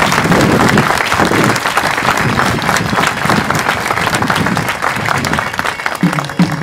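Crowd applauding steadily, tapering slightly. In the last moment, xeremies (Mallorcan bagpipes) start to play.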